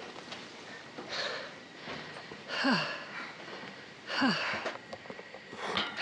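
A person's heavy breathing after a steep climb. There are four loud exhales about a second and a half apart, each ending in a short falling sigh.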